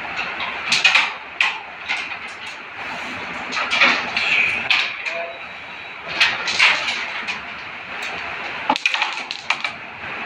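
Sharp wooden clicks and clacks of a carrom striker hitting carrom men and the pieces knocking into one another and the board frame, many short hits scattered through, the sharpest near the end.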